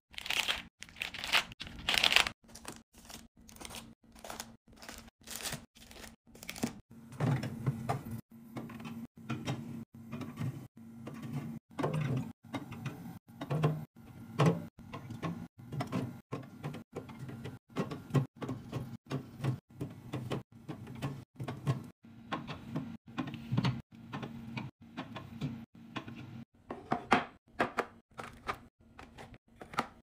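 Snack pouches, drink cans and yogurt cups being set into clear plastic organizer bins and onto a fridge shelf: a fast, uneven run of plastic clicks, taps and packaging crinkles, broken into short snippets. A low steady hum runs underneath from about seven seconds in.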